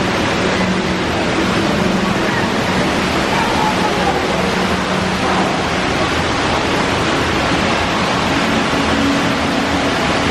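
Water streams at a water-play exhibit running and splashing, a steady loud rush of water.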